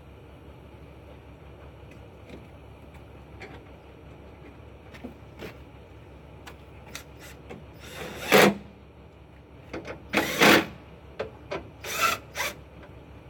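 Hands working on a truck's plastic headlamp assembly and trim: scattered clicks and knocks, with louder rubbing scrapes about eight, ten and twelve seconds in, over a steady low hum.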